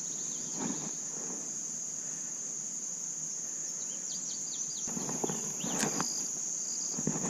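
Steady, high-pitched chirring of crickets, with a few short chirps about halfway through.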